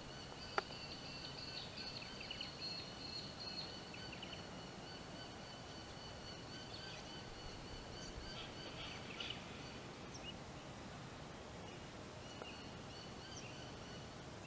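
Faint outdoor ambience: a steady high-pitched insect buzz, with scattered bird chirps and one sharp click about half a second in.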